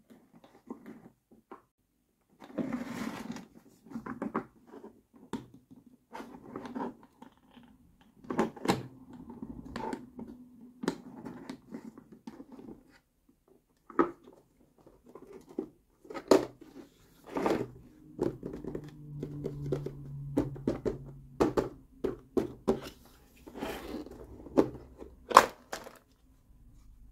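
Hard plastic case and its plastic tray insert being handled: lid and clasps opening, with sharp plastic clicks and knocks and stretches of rubbing and scraping, one of the loudest clicks near the end.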